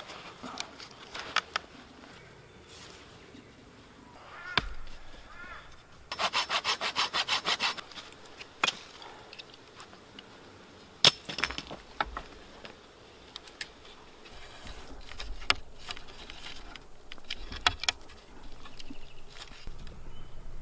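Silky pruning saw cutting through a branch in a short run of quick, even strokes about six seconds in, with scattered knocks and clicks of branches being handled before and after.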